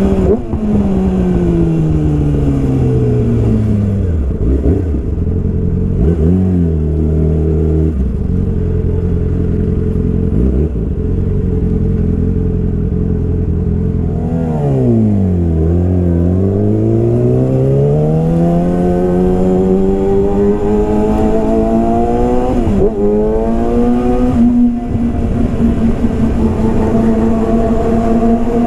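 Yamaha R6 inline-four running through a full Yoshimura exhaust system. The engine note falls as it comes off the throttle, gives a quick blip, holds low for a while, then dips and climbs steadily under acceleration with a short break for a gear change before settling to a steady note near the end.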